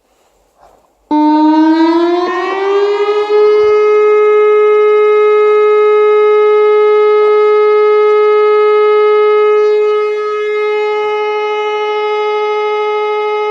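Civil defence air raid siren starting about a second in, winding up in pitch over a couple of seconds and then holding one loud steady tone. It is the routine siren test held on the first Saturday of each month.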